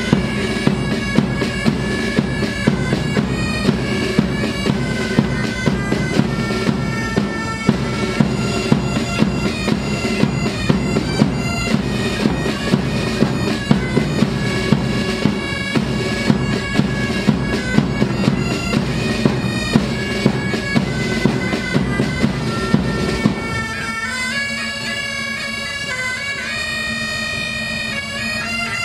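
A military pipe band playing: bagpipes sound a melody over their steady drone, with drums beating a regular march beat. About 23 seconds in the drums stop and the pipes carry on alone.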